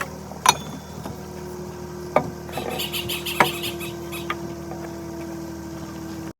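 Things being handled and put away while packing up: sharp knocks about half a second, two and three and a half seconds in, and a patch of rattly clatter around three seconds, over a steady hum. The sound cuts off suddenly near the end.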